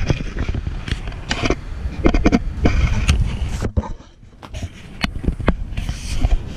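Handling noise from a handheld camera being swung around: a run of irregular knocks and rubbing clicks over a low rumble, dropping briefly about four seconds in.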